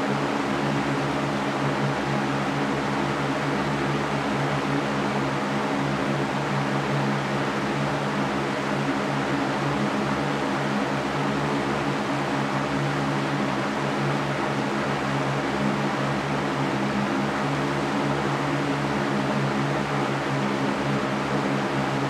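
Large wire-caged floor fan running steadily: a constant rush of air over a low motor hum.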